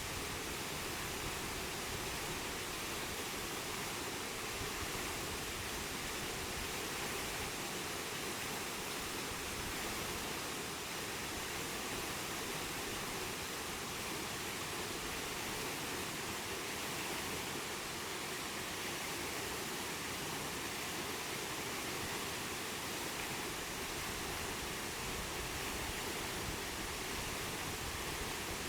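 Waterfall rushing: a steady, even roar of falling water with no change throughout.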